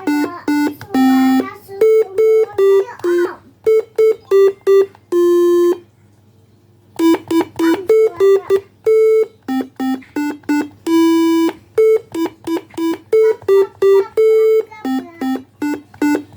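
Arduino-made telolet basuri bus-horn tones played from a toy pianika's keyboard: buzzy electronic notes in a quick tune of mostly short notes with a few held ones, breaking off for about a second a third of the way through.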